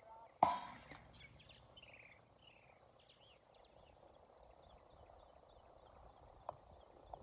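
One sharp crack about half a second in, ringing briefly, then a fainter click near the end. Birds chirp in short falling notes through the first half over a steady outdoor hum of insects.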